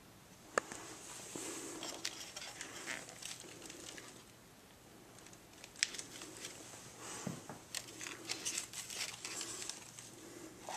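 Thin black plastic seedling pots and trays being handled, with irregular crinkling, crackling and sharp clicks.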